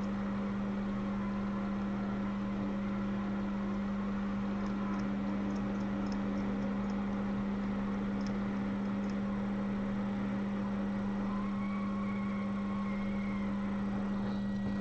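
Steady low electrical hum from workbench equipment, with a few faint light ticks in the middle.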